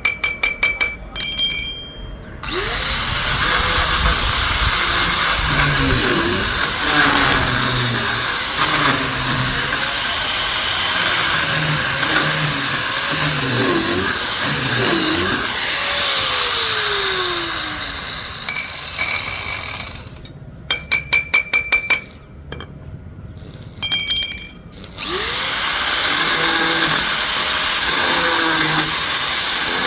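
Power drill boring into granite, running steadily for long stretches. It stops and starts with short runs of rapid pulses near the start and about two-thirds through.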